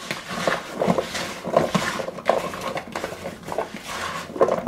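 Oiled chunks of chopped root vegetables being tossed by hand in a mixing bowl: irregular knocks and rattles of the pieces against each other and the bowl.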